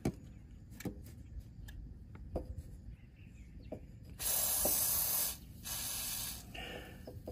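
Aerosol can of WD-40 penetrating oil sprayed through its straw onto a parking brake cable: two hissing bursts about four seconds in, the first about a second and a half long, the second shorter and quieter. A few light clicks of handling come before them.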